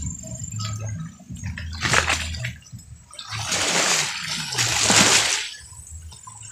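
Small sea waves washing up on a pebbly shore, swelling and falling back three times, the last one the loudest.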